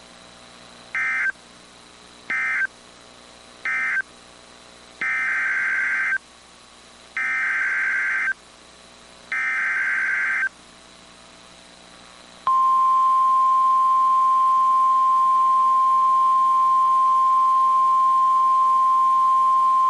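NOAA Weather Radio Emergency Alert System tones: three short warbling SAME data bursts, the end-of-message code closing one warning, then three longer SAME header bursts announcing the next severe thunderstorm warning. About twelve seconds in, the steady, louder 1050 Hz warning alarm tone starts and holds.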